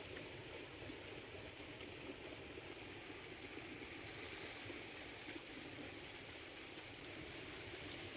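Steady rush of fast, churning white water in a concrete-edged canal.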